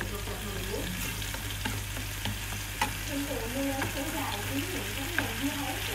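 Diced tomato sauce sizzling in a nonstick frying pan as a wooden spatula stirs it, with a few sharp clicks of the spatula against the pan.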